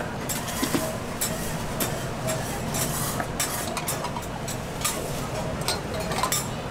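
Food-stall kitchen clatter: utensils and dishes clinking and knocking many times over a steady din of background voices and street noise.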